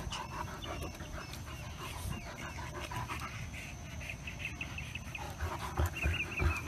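Dog panting as a Great Dane and a small puppy play-wrestle, with short high chirping sounds around the middle and again near the end, and a few soft thumps near the end.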